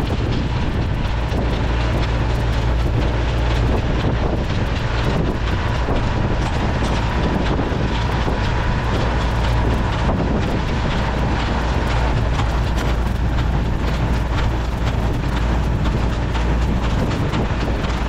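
Massey Ferguson 178 tractor running steadily under load as it pulls a New Holland Hayliner 317 small square baler that is baling hay, with many short clicks and knocks from the baler over the steady engine.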